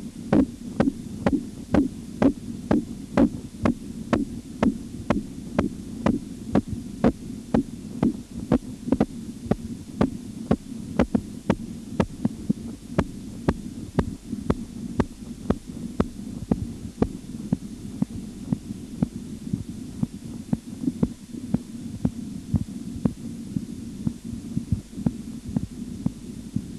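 Korotkoff sounds heard through a stethoscope over the brachial artery as the blood pressure cuff deflates: regular pulsing thuds, about one and a half a second, over a steady low hum. The thuds are strongest at first and grow weaker in the later part, as the cuff pressure falls toward the diastolic point.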